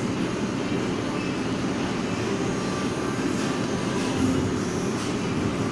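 Steady low rumbling background noise at an even level, with no distinct clicks or knocks.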